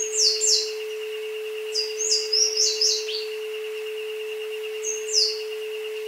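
Isochronic tones: a steady pure tone with a higher tone pulsing rapidly above it. Over them, birds in a jungle soundscape give short, quick downward-sweeping chirps: a couple at the start, a run of them about two to three seconds in, and one more near five seconds.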